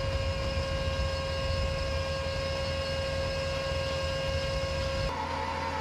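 A running machine: a steady, even whine over a low rumble, which changes abruptly about five seconds in.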